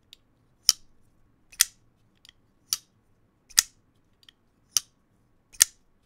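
Artisan Cutlery Mastiff folding knife being flicked open and shut repeatedly on its bearing pivot. It gives six sharp, loud snaps about a second apart, with a few fainter clicks between them.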